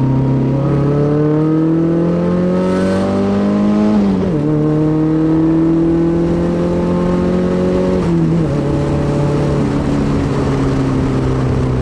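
Nissan 240SX's SR20DET turbocharged four-cylinder engine pulling steadily under acceleration, its pitch climbing, then dropping sharply at two upshifts, about four and eight seconds in. After the second shift it cruises at a steady pitch.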